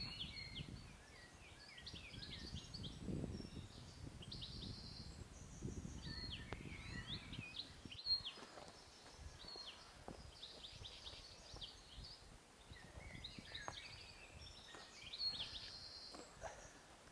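Forest birds calling and singing, with many short chirps and whistles throughout. A low rumble comes and goes under them in the first half.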